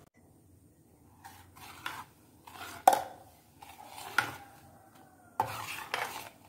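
Metal spoon stirring juice in a stainless steel bowl, mixing in jaggery: scraping and clinking against the bowl's sides in uneven strokes starting about a second in, with a sharp clink about halfway and a busier run of scraping near the end.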